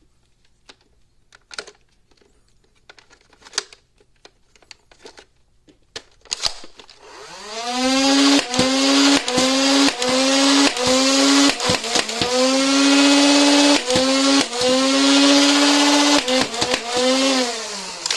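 Nerf Rival Charger MXX-1200's battery-powered flywheel motors, after a few scattered handling clicks, spin up with a rising whine about seven seconds in. They hold a steady whine while about a dozen foam balls are fired in sharp shots, each briefly pulling the pitch down, and wind down with a falling whine near the end.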